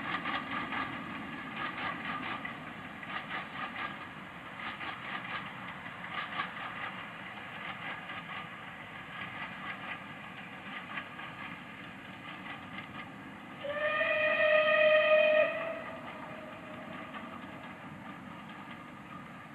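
Steam locomotive working a train of carriages, its exhaust beats and the clatter of wheels on rail fading as it draws away. About two-thirds of the way through, the locomotive's steam whistle sounds once, a steady blast of about two seconds.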